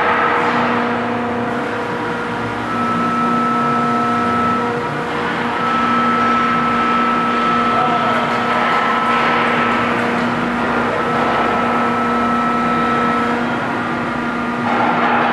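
Builtrite 2100-SE stationary electric material handler running, its electric motor and hydraulic pump giving a steady hum and whine. The boom and grapple move, with a few swells of rushing noise over the hum.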